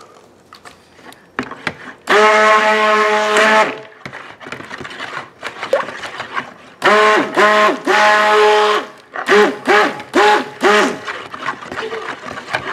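Stick blender motor whining in soap batter in pulses: a burst of about a second and a half, a longer burst of about two seconds, then four short pulses in quick succession, each spinning up and down in pitch. The blender is mixing titanium dioxide into the batter.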